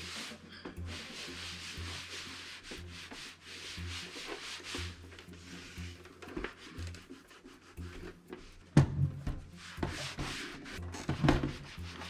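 Cloth rubbing and wiping over a Dell OptiPlex 7050 desktop computer case, a steady scrubbing hiss. Later come a few sharp knocks, the loudest near the end, as the case is handled and knocks against the tabletop.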